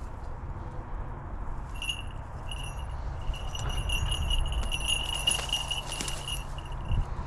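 Falconry bells on a hawk jingling and ringing as the bird moves, starting about two seconds in, holding a steady ringing tone for several seconds and stopping near the end.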